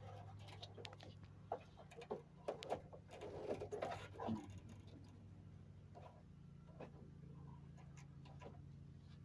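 Scattered light clicks and knocks, most of them in the first half, from hands working the fuel and vapor line connections at the top of a pickup's fuel tank, over a steady low hum.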